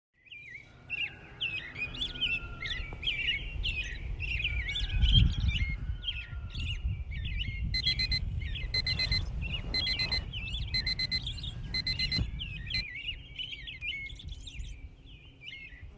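Birds chirping and singing continuously. About halfway through, a digital alarm clock beeps in quick repeated bursts for roughly five seconds, then stops. A low rumbling noise runs underneath.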